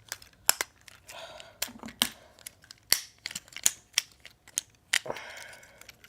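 Irregular sharp plastic clicks and snaps as the parts of a Transformers Studio Series Ratchet figure are worked and tabbed together during transformation, with brief handling rustle about a second in and near the end.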